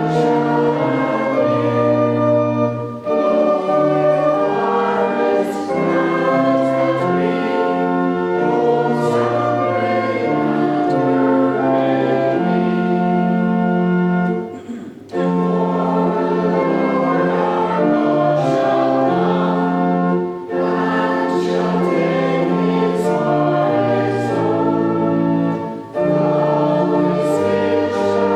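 Voices singing a hymn together with a sustained accompaniment and a moving bass line, the music pausing briefly between lines.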